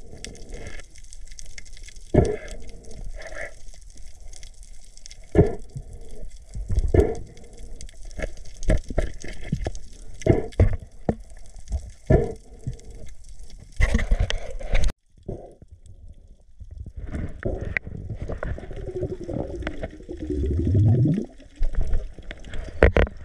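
Water sloshing and gurgling with irregular knocks and splashes, as from an action camera in or at the surface of the sea. Near the end a short low tone rises in pitch.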